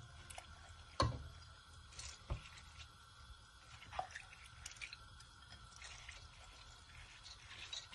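Wet moong dal scraped with a spatula out of a glass bowl into a pan of raw chicken mince: soft wet dripping and sliding, with a few sharp knocks, the loudest about a second in.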